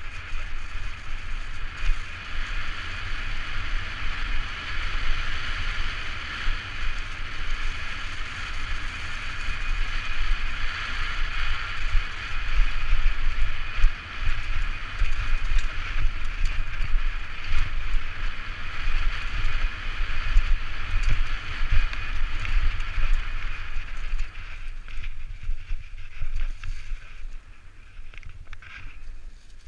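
Propain Tyee enduro mountain bike descending a forest trail at speed, heard from a helmet camera: tyres rolling over leaves and dirt with a steady hiss, and wind buffeting the microphone as a gusty low rumble. The hiss thins out near the end as the trail turns to tarmac.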